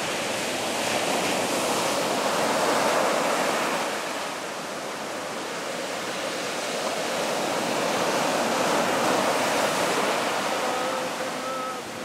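Sea surf breaking and washing up a sand beach. The rush swells twice, about a second in and again past the middle, as successive waves break.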